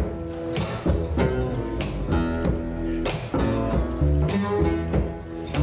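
Live folk duo playing an instrumental passage: fast-picked steel-string acoustic guitar over an upright double bass line, with a sharp percussion hit about every second and a quarter.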